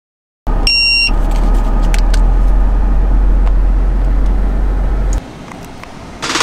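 Car engine running with a steady low rumble, heard from inside the cabin. It starts suddenly about half a second in, a short electronic chime sounds just after, a few clicks follow, and the rumble cuts off about five seconds in.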